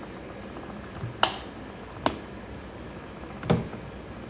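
Three sharp, light knocks of small plastic mixing cups being handled on a tabletop.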